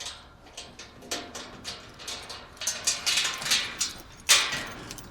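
A series of scrapes, rattles and knocks, the loudest about four seconds in, as a farm gate is unlatched and eased open.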